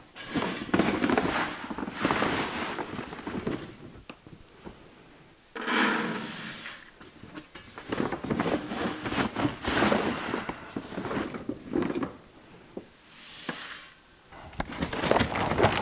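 A feed scoop scraping and digging into a paper sack of poultry feed, the sack rustling, and feed poured into a bucket, in several separate bouts of handling noise.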